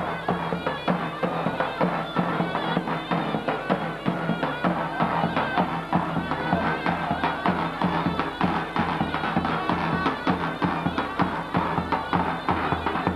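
Turkish folk dance music played live: a davul bass drum beating a steady rhythm under a shrill reed wind instrument carrying the melody.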